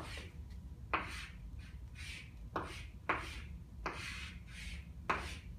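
Chalk drawing short vertical lines on a blackboard: about half a dozen strokes about a second apart, each starting with a tap and trailing off in a scratchy hiss.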